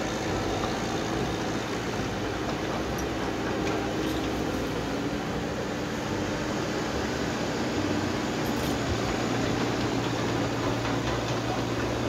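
Komatsu PC78US hydraulic excavator's diesel engine running steadily while it works, a constant engine drone with a low hum and no change in pitch.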